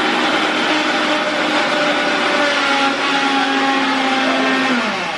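Electric mixer grinder running steadily under load as it grinds wet green chutney. Near the end its pitch falls as the motor is switched off and spins down.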